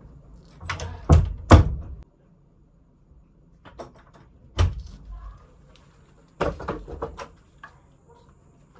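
Knocks and bangs of an interior door being opened and bumped: two loud bangs about a second and a half in, a single knock a few seconds later, then a quick run of thuds.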